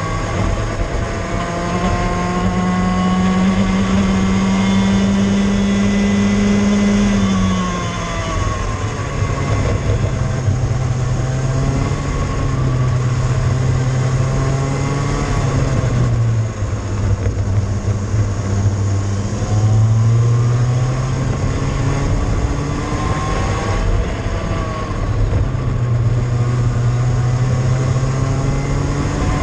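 Cadet kart engine at full throttle, its note climbing steadily and then dropping sharply several times as the kart lifts and slows for corners before picking up again.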